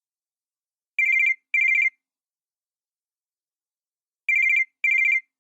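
Cell phone ringing with a warbling electronic trill in a double-ring pattern: two short bursts close together, a pause of about two and a half seconds, then another pair.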